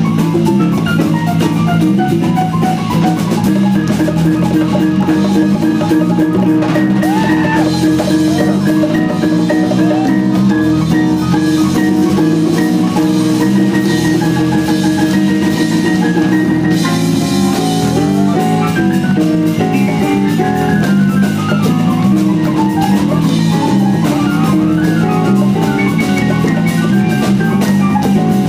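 Live Brazilian jazz band playing a baião: drum kit and percussion keep a steady groove under a busy run of melodic notes.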